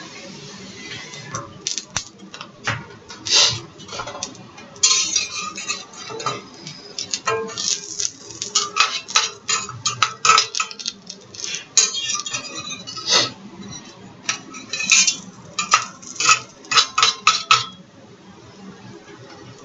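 A metal utensil clinking repeatedly against cookware, in irregular runs of quick strikes that stop near the end.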